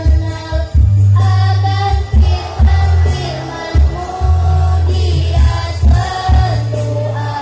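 Mixed choir of men and women singing a march-style Islamic hymn in Indonesian, holding long notes over an accompaniment with deep bass notes and a steady beat.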